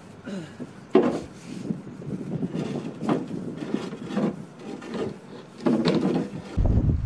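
Irregular wooden knocks and scrapes from a homemade plywood canoe being handled at the water's edge, the loudest about a second in and again near the end. A low rumble comes in just before the end.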